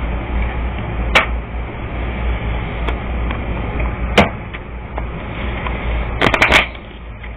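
A few sharp clicks or taps over a steady low hum: one about a second in, another about four seconds in, and a quick run of several around six seconds in.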